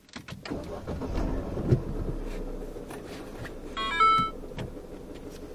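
Mini Cooper R56 cabin: the car's low engine rumble with scattered clicks and knocks, and a quick run of electronic beeps at several pitches about four seconds in.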